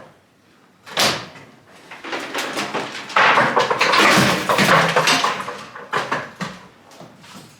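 Old standalone furnace being worked loose and moved: a sharp bang about a second in, then a loud scraping rattle for a couple of seconds, and a few knocks near the end.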